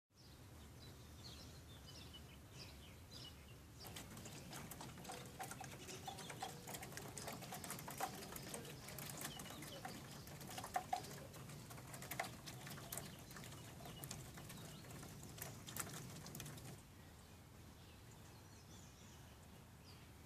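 Rain falling, with drops pattering in many irregular sharp taps from about four seconds in until they stop suddenly near the end, over faint bird chirps.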